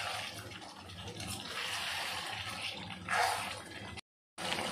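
Paneer and capsicum gravy sizzling and bubbling in an iron kadai while a metal slotted spatula stirs it, louder for a moment about three seconds in. The sound cuts out briefly near the end.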